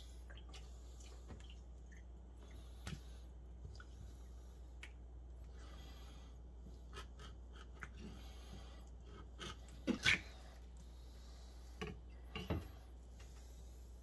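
Kitchen knife skinning an olive flounder fillet on a plastic cutting board: faint scraping and slicing with a few short knocks and taps, the loudest about ten seconds in.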